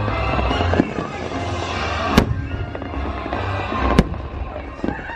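Fireworks bursting over a loud music soundtrack, with two sharp bangs about two and four seconds in and smaller cracks between.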